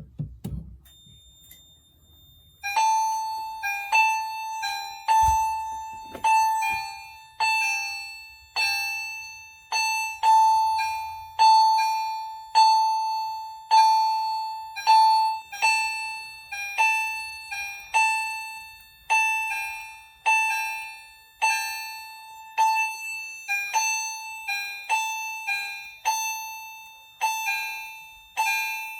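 EST fire alarm chime strobes sounding in alarm after a conventional smoke detector has been tripped: a continuous run of evenly repeated electronic chime strikes, about one and a half a second, each ringing out and fading, on alternating pitches. The chiming starts nearly three seconds in.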